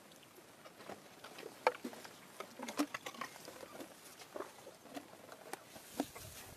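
Irregular soft clicks, crackles and rustles from an Asian elephant right at the microphone, its trunk and face moving against or just by the phone, with a low thump about six seconds in.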